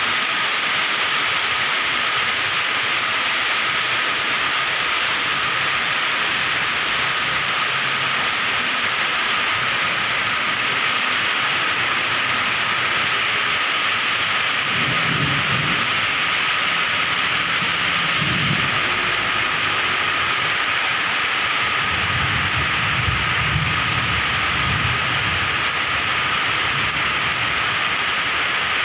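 Heavy rain falling steadily on pavement, grass and puddles, a dense constant hiss. A few low rumbles come and go in the second half.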